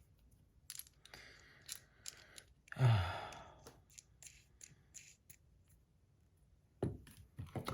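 Small metal bar spinners being handled and set down: scattered light clicks and taps, with one short, louder rustling scrape about three seconds in.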